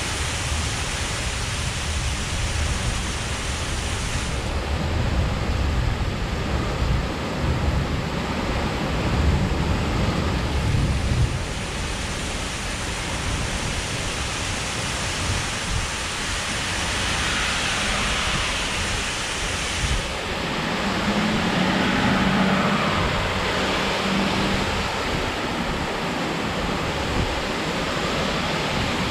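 Torrential rain pouring down steadily during a thunderstorm, with a low rumble underneath for roughly the first half.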